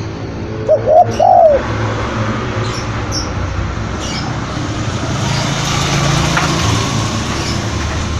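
Spotted dove cooing: two short arched coo notes about a second in, the loudest sound, over a steady noisy background with a few faint high chirps of small birds.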